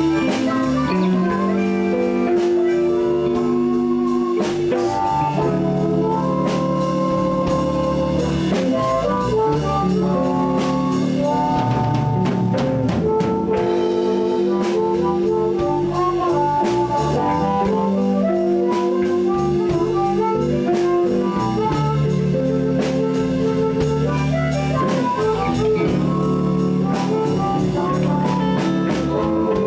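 Live blues band playing an instrumental passage: drums and bass keep a steady groove under guitar and a sustained, wailing harmonica-like lead line.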